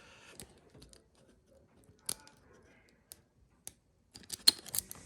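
Small clicks and taps of a padlock and lock-picking tools being handled: a single click about two seconds in, then a quick run of clicks near the end.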